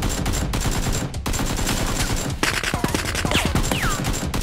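Rapid automatic gunfire sound effects, dense and continuous, with a brief break about a second in and a couple of falling whines about three seconds in.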